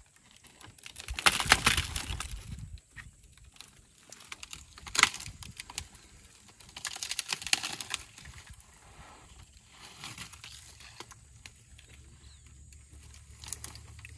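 Elephants feeding on a tree: leafy branches rustle and twigs crackle and snap as they are pulled and stripped. The sound comes in several bursts, the loudest about a second in, with others near the middle.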